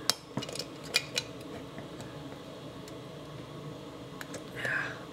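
Thin metal clicking and creaking as the lock plate of a vintage metal coin bank is bent and pried by hand, with a few sharp clicks in the first second or so and then faint scattered ticks.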